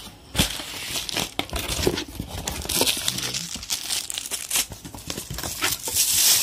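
Plastic wrapping and bags crinkling and rustling as packed items are pulled out of a cardboard box, with a few sharp knocks, the crinkling getting louder near the end.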